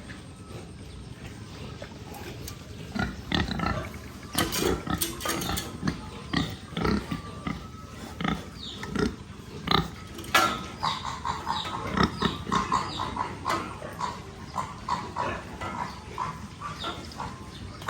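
Piglets grunting and calling in many short, overlapping bursts. They begin about two and a half seconds in and then come thick and fast.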